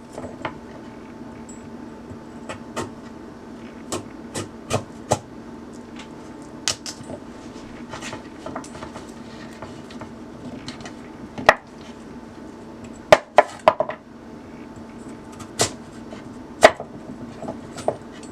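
Kitchen knife slicing raw sweet potato into strips, the blade knocking down onto the cutting board at irregular intervals, with several louder knocks in quick succession about two-thirds of the way in.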